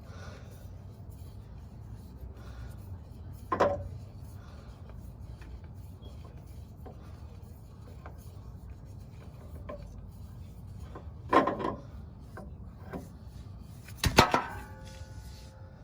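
Hand-handling noise of fuel filter parts: three separate knocks and clatters, the last the loudest with a brief ringing after it, over a low steady hum.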